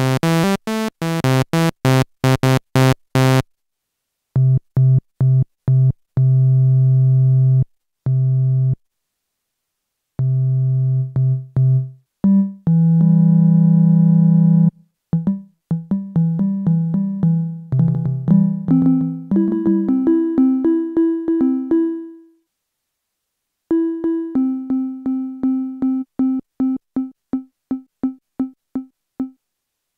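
Roland Gaia SH-01 synthesizer notes played on its keyboard while a marimba patch is built up, with silent pauses while the controls are set. It opens with a quick run of bright notes on the default patch, moves to long held notes, and then, once the amp envelope's sustain is set to zero, the notes die away quickly. It ends with a string of short repeated notes.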